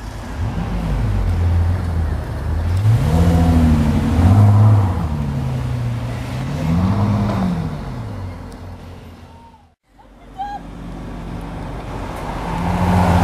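Bentley Continental Supersports' twin-turbo W12 engine accelerating, its note climbing and dropping several times. The sound cuts out briefly about two-thirds through, then the engine returns and climbs again near the end.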